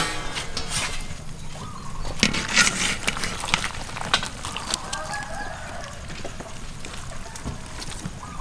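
A rooster crowing, one wavering call around the middle. Sharp metallic clinks of a wire strainer knocking against a wok and a metal tray come in the first half.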